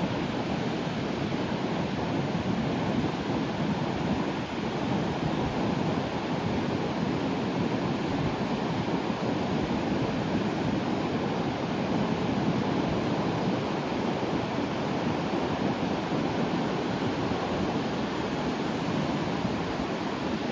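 Sea waves breaking on the shore: a steady, continuous wash of surf with no single crash standing out.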